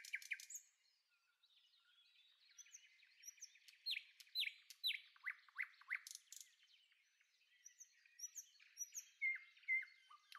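Faint bird chirping: a quick run of repeated chirps, then after a short pause a series of downward-sweeping chirps that is loudest about four to six seconds in, with more chirps and short whistles near the end.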